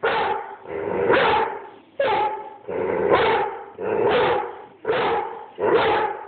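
Airedale terrier barking repeatedly: about seven loud barks, roughly one a second.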